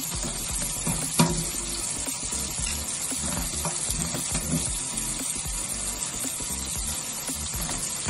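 Tap water running into a stainless-steel sink and splashing as a green-cheeked conure bathes and flutters in the stream. A sharp knock about a second in.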